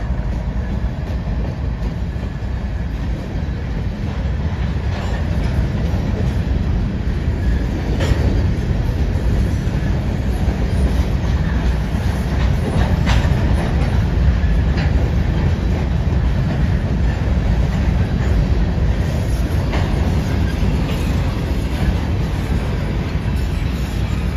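Covered hopper cars of a slow-moving freight train rolling past, a steady low rumble of steel wheels on rail with a few sharp clicks and clacks from the wheels.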